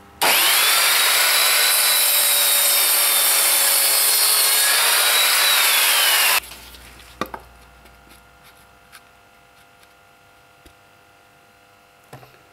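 Evolution sliding mitre saw starting up and cutting through a wooden strip at a compound angle: a loud steady blade-and-motor whine over the cutting noise, rising as it spins up and falling as it winds down, for about six seconds before stopping abruptly. A single knock follows about a second later.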